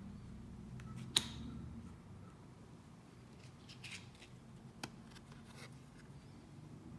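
Tarot cards being handled during a flip through: one sharp click about a second in, then faint card rustles and a few lighter clicks.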